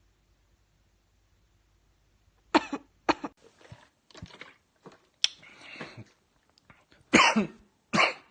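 A person coughing: a run of harsh, sharp coughs starting about two and a half seconds in, with a longer rasping cough in the middle. The last two coughs are among the loudest.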